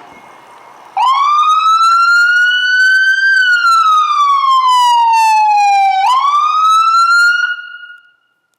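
Ambulance siren sounding a wail: it starts about a second in and rises, sweeps slowly down in pitch, jumps back up, holds, then fades out near the end.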